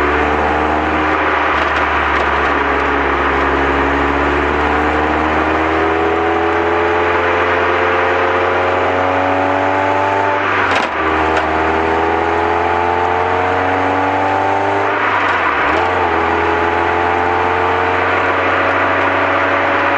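Lotus Elise Mk2 (S2) engine heard onboard under sustained acceleration, its pitch climbing steadily and dropping twice at gear changes, about 11 and 16 seconds in, over steady road and wind noise.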